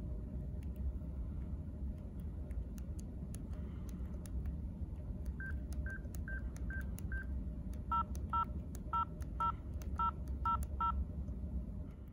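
Sony Ericsson Spiro mobile phone keypad in use: light key clicks, then five short single-pitch key beeps about two a second, then seven short two-tone dialing beeps near the end, like telephone keypad tones, over a low background rumble.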